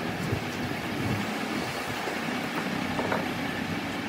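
Steady machine-shop hum and rumble, with a few short metal knocks as a three-cylinder engine's cylinder head is handled and turned over on a lathe.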